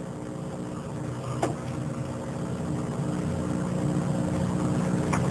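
A steady low droning hum, slowly growing louder, with one faint click about a second and a half in.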